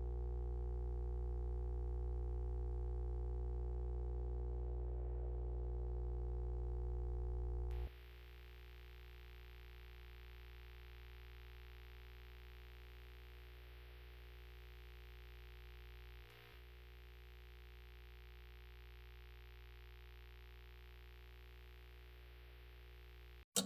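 Steady synthesizer drone of many held tones with no beat, dropping in level about eight seconds in and cutting off just before the end.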